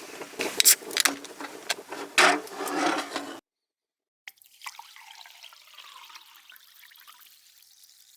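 Crackling and clicking handling noise that cuts off suddenly, then a click followed by a soft liquid hiss that fades away over about four seconds.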